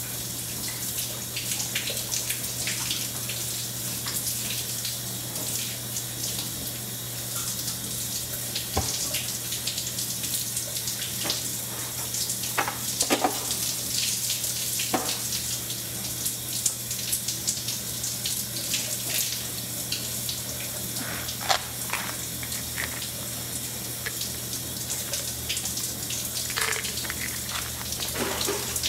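Water running steadily from a bathroom tap, an even hiss, with scattered small knocks and clatters of items being handled on the counter and a low steady hum underneath.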